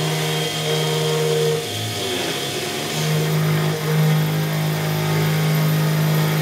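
Small CNC milling machine's spindle running steadily while a quarter-inch end mill rough-profiles a 304 stainless steel blank. The tone briefly drops and slides in pitch about two seconds in, then settles back to the steady hum.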